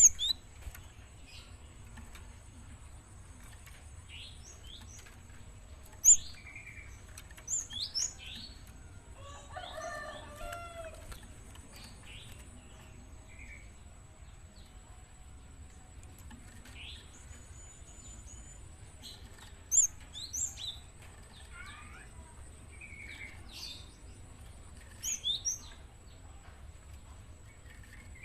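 Young Java sparrow calling actively: short, sharp, high chirps come in scattered clusters. A lower, rougher call from another bird is heard about ten seconds in.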